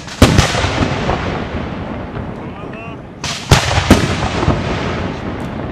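Aerial firework shells bursting. There is a loud bang about a quarter second in and two more about three and a half and four seconds in, with a continuous rumble and crackle of other bursts and their echoes between them.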